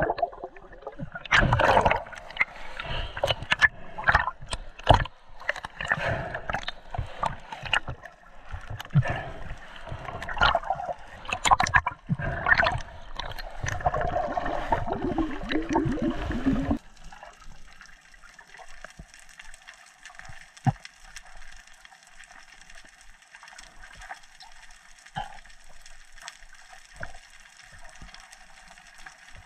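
Underwater sound through a camera housing in the sea: bubbles and churning water with many irregular clicks and knocks. About halfway through it cuts abruptly to a quieter, steady underwater hiss with a few faint ticks.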